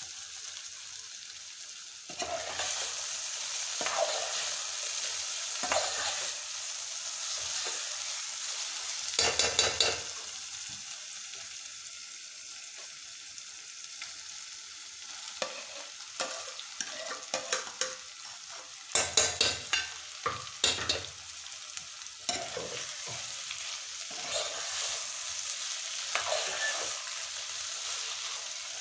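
Green peppers sizzling in oil in an aluminium pot while a metal spoon stirs and scrapes against the pot. There are clusters of sharp knocks and scrapes about nine seconds in and again about nineteen to twenty-one seconds in.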